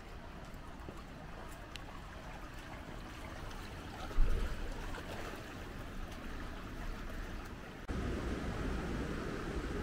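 Steady outdoor background noise with a short low thump about four seconds in; near eight seconds it cuts abruptly to a louder, deeper rushing noise.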